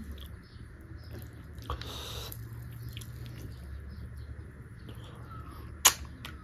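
A person chewing a mouthful of beef curry close to the microphone, with soft wet mouth clicks throughout. A single sharp click near the end is the loudest sound.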